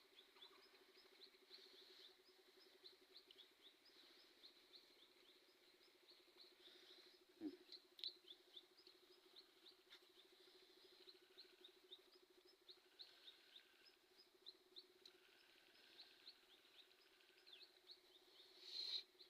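Faint outdoor ambience: rapid, high-pitched chirping repeated many times a second from small animals, over a low steady hum, with a couple of soft knocks near the middle.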